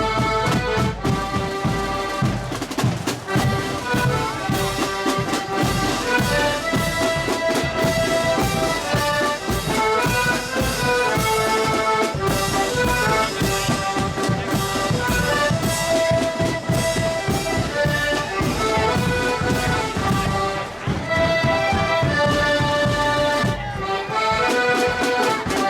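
Marching accordion band playing a tune, massed accordions carrying the melody over a steady drum beat.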